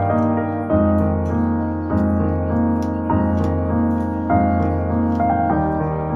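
Soft background piano music, moving to a new held chord about every second and a quarter.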